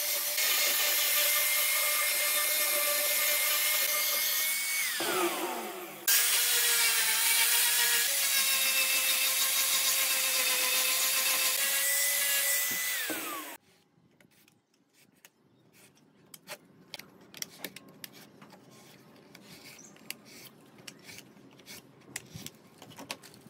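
Angle grinder with a sanding disc sanding a wooden board: a steady high motor whine with the rasp of abrasive on wood. It winds down, falling in pitch, about five seconds in, runs again, and winds down once more about thirteen seconds in. After that come faint clicks and scrapes of a utility knife cutting paper on the board.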